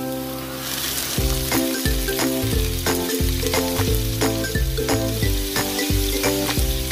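Marinated chicken pieces frying in a hot nonstick wok, a steady sizzle that swells about a second in, over background music with a steady beat.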